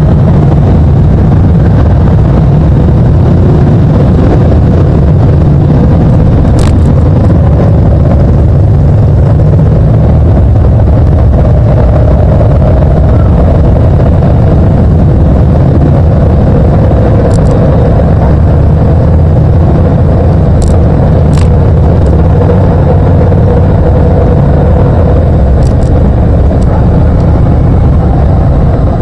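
A motorcycle on the move, heard from a camera mounted on the bike: a loud, steady low rumble of engine, road and wind on the microphone. A few short clicks are scattered through it.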